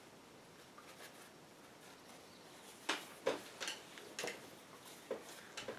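A paper towel crinkling and rustling as it is handled, in several short crackles from about three seconds in, after a quiet start.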